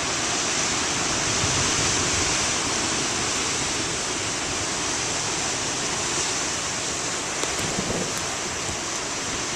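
Heavy ocean surf churning steadily, the waves stirred up by a stationary nor'easter; no single break stands out.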